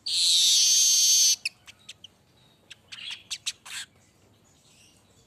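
Manyar (weaver bird) song: a loud, high, buzzing hiss lasting about a second and a half, followed by a scatter of short sharp chirps that stop about a second before the end.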